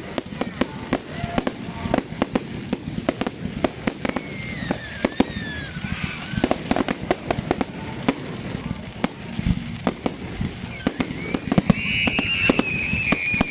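Fireworks display: a rapid run of bangs and crackles from exploding fireworks. A high-pitched falling squeal sounds about a third of the way in, and a louder, longer one near the end.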